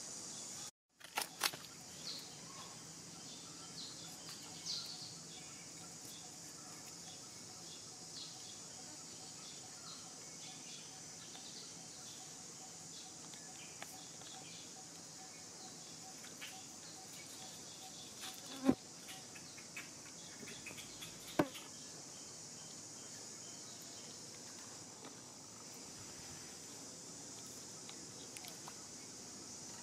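Steady high chorus of insects with a few scattered small clicks and two sharp knocks, about 19 and 21 seconds in. The sound drops out for a moment about a second in.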